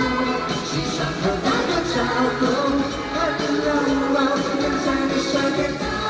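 Live pop song played by a band, with a singing voice over drums and sustained instruments.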